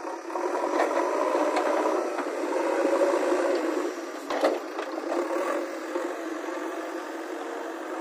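JCB backhoe loader working, a steady machine noise with rattling, louder in the first half, and a single sharp knock a little after four seconds in.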